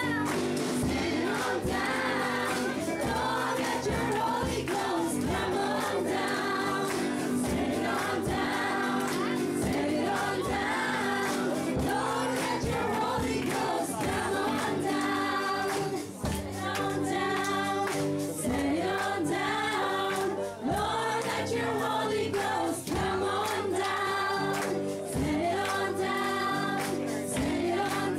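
A church choir of women and men singing a gospel song together, with instrumental backing that keeps a steady beat.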